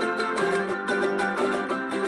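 Instrumental passage of a son jarocho-inspired song: plucked string instruments strummed in a quick, even rhythm under sustained chords, with no singing.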